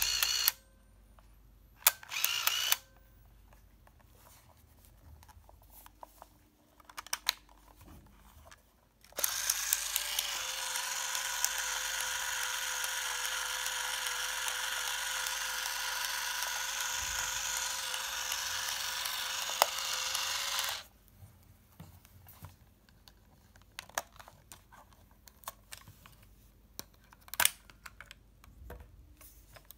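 Polaroid 2000FF 35mm camera's built-in film motor. It clicks and whirs briefly at the start and again about two seconds in, then runs in one steady whir for about eleven seconds, rewinding the film into its cartridge. Scattered small plastic clicks follow as the camera back is handled and opened.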